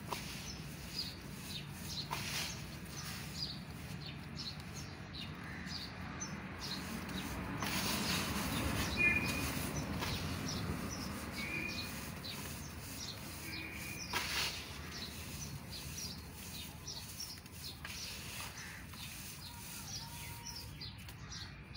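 Damp cement being squeezed and crumbled by hand, giving soft gritty crunching and crumbling. Small birds chirp repeatedly in the background throughout.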